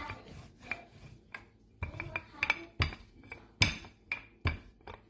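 Wooden rolling pin rolling out bhatura dough on a round wooden board: irregular wood-on-wood knocks and clacks with faint rubbing, the loudest knocks coming in the second half.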